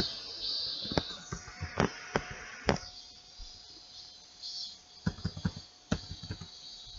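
Computer keyboard keystrokes: a handful of separate key clicks, then a quick run of about six clicks about five seconds in as a six-character password is typed, over a faint steady hiss.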